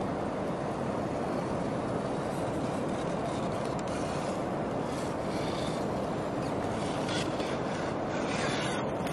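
Axial Capra RC crawler's 27T brushed motor and geared drivetrain running steadily as it crawls over rock, with scattered clicks and scrapes of tyres and chassis on the stone in the second half as it comes close.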